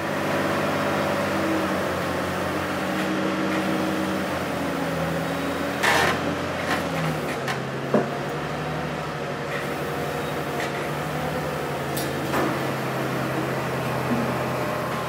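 Workshop machinery running with a steady hum that shifts pitch a few times, with sharp metallic knocks about six, eight and twelve seconds in.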